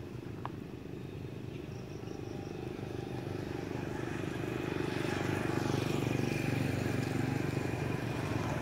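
A motor vehicle engine running close by, its rumble growing louder over the first few seconds as it draws nearer, then holding steady.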